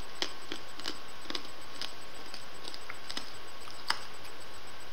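Wet mouth clicks and smacks, about a dozen scattered irregularly, from sucking on a hard-candy scorpion lollipop; the sharpest click comes near the end as the lollipop is taken out of the mouth. Steady microphone hiss underneath.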